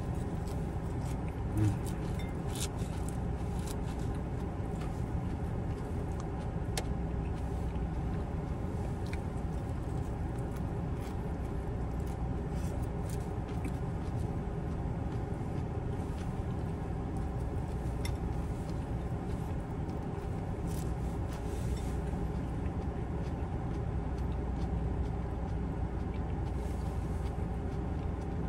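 Car air conditioning running with a steady hum, heard inside the parked car's cabin. Now and then a faint click from eating.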